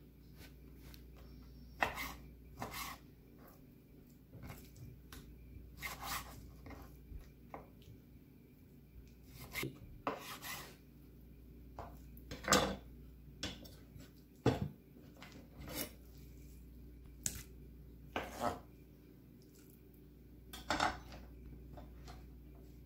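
Chef's knife cutting raw chicken on a wooden cutting board: irregular knocks of the blade on the wood, with soft scraping between them.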